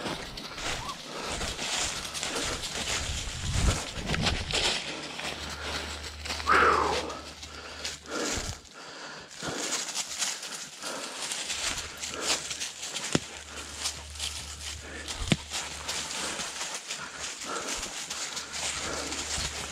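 Footsteps and paws crunching and rustling through dry leaves and pine needles as a person walks behind a leashed tracking dog working a trail. There is a short falling call about six seconds in.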